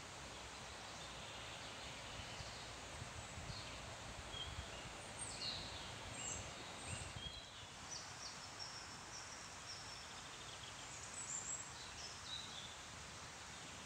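Songbirds chirping and calling in short, scattered phrases over a steady rustle of leaves in the trees.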